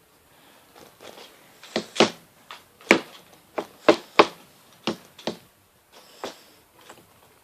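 About a dozen sharp, irregular plastic clacks and knocks from a Lego Technic 4x4 car being handled, starting a couple of seconds in.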